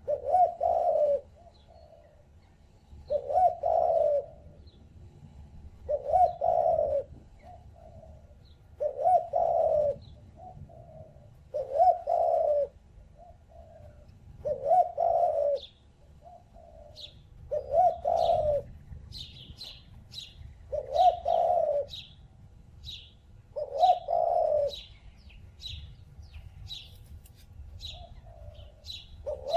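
A dove cooing the same call of about a second, about every three seconds, roughly ten times. Short high chirps from small birds fall between the calls and come more often in the second half.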